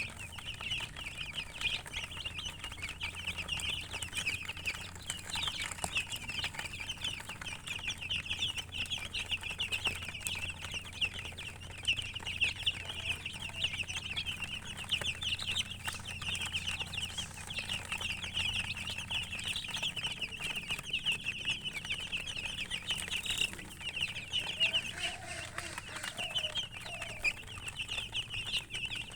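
Chicks peeping continuously, a dense stream of short high-pitched chirps, with a few lower calls a little before the end.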